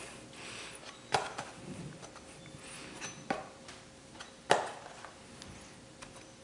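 A few sharp knocks and taps as yo-yos and their cardboard display boxes are handled and moved on a table, the loudest about four and a half seconds in.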